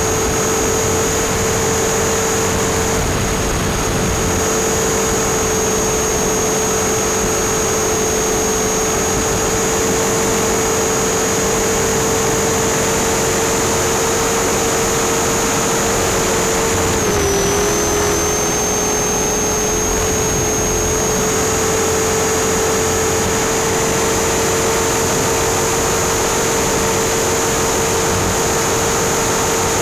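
RC helicopter's motor and rotor heard from on board: a steady high whine over constant rotor-wash noise. The pitch dips briefly a little past halfway through, then settles back.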